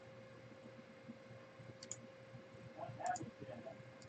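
Quiet room with a steady faint hum and a few faint, short clicks, one about two seconds in and a couple about three seconds in.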